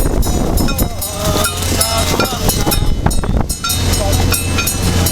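A motor boat's engine running with a steady low hum that grows stronger about two thirds of the way in, under a babble of several people talking and scattered clicks and knocks.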